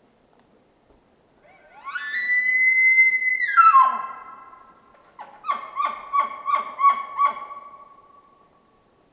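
Bull elk bugling: a loud whistle that glides up, holds high for about a second and a half, then drops away, followed by a string of about seven chuckling grunts over a lower held tone.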